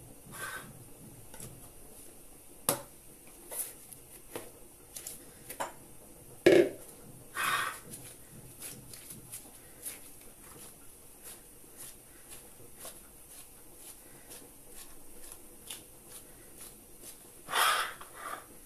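Handling of dough and a thin metal baking tray by plastic-gloved hands: scattered light taps and rustles, with one louder dull thump about six and a half seconds in and short scraping rustles just after it and near the end.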